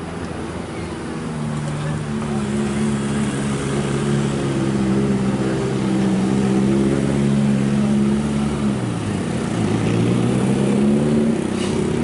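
Truck engine running steadily, its pitch dropping about nine seconds in and then rising again.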